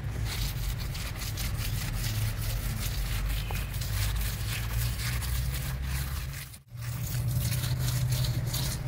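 A hand and small trowel scraping and pressing wet cement mortar against the inside of a cement planter mould: short gritty scratches and clicks over a steady low rumble. The sound cuts out for a moment about two-thirds of the way through.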